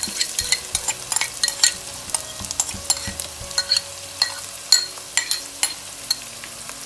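Hot oil sizzling and crackling with many sharp pops as chopped onions are tipped into a pan of fried spices, with a metal spoon scraping the onions out of a plastic container.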